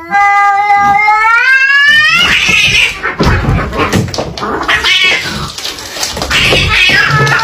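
Cats fighting: a long, loud yowl that rises in pitch for about two seconds, then breaks into a harsh, noisy stretch of broken screeching cries.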